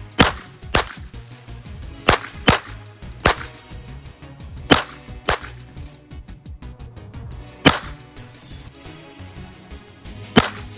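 Glock 44 .22 LR pistol firing nine sharp shots at an uneven, deliberate pace, the gaps running from about half a second to two and a half seconds.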